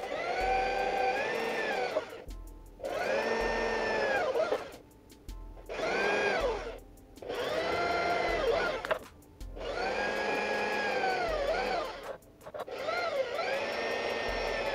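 Corded electric drill boring a series of holes in a wooden board: about six runs of a couple of seconds each, the motor whine rising, sagging as the bit bites, then stopping between holes.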